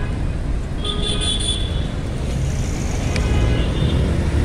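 Road traffic: cars passing close by with a steady low rumble of engines and tyres, and a brief high-pitched tone about a second in.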